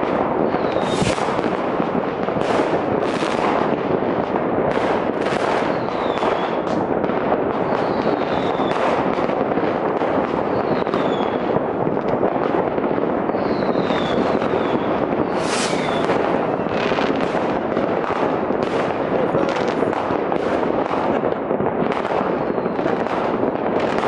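Citywide New Year's Eve fireworks heard from a distance: a continuous dense crackle of countless bangers and rockets, with sharper single bangs every second or so and now and then a short falling whistle.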